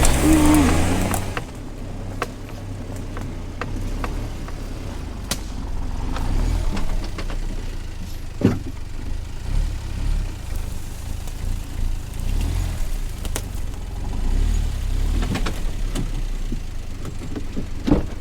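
Suzuki Jimny JB64's 660 cc turbocharged three-cylinder engine revs with a rising pitch for the first second or so, then runs low and steady as the vehicle crawls over a rough forest track. Sharp knocks and clunks come now and then, the clearest about halfway through and near the end.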